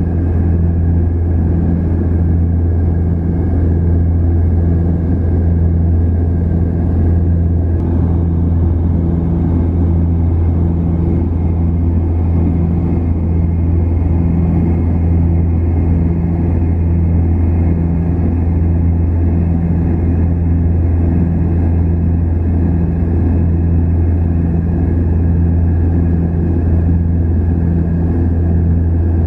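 Cabin noise of an Antonov An-24RV in cruise, heard inside the cabin: its two Ivchenko AI-24 turboprop engines and propellers give a loud, steady deep drone with a slow, even pulsing about once a second.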